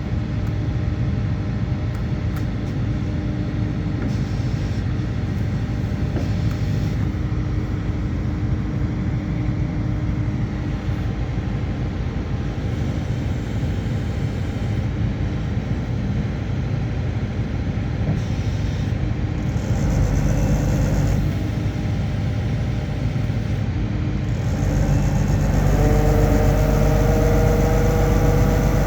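Engine of a Comacchio MC 800 anchor drilling rig running steadily. About 25 s in it gets louder and rises in pitch, as if revving up or taking on load.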